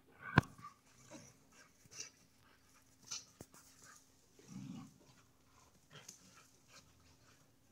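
Two dogs play-fighting, with panting and short scuffling noises scattered through. A sharp click about half a second in is the loudest sound.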